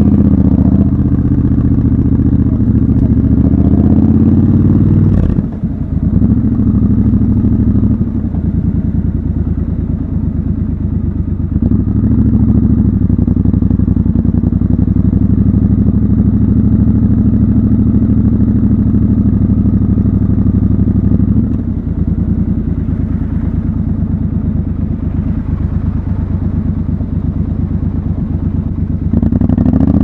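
Triumph Scrambler 1200 XC's 1200 cc parallel-twin engine running as the bike rides through town. It pulls away, drops briefly with a click about five seconds in, then runs at low revs, eases off about twenty-one seconds in and picks up again near the end.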